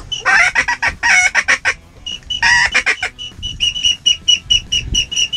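Duck calls being worked at incoming ducks: a duck whistle giving rapid short high peeps, about four a second, broken three times by raspy quacking runs on a reed duck call.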